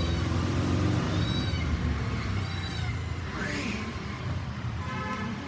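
A kitten mewing repeatedly: several short, high-pitched mews a second or so apart, over a steady low hum.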